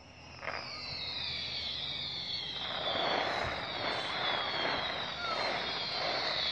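Distant fireworks finale: a shot about half a second in, overlapping high-pitched whistles that slide down in pitch, and dense crackling from about halfway through that keeps building.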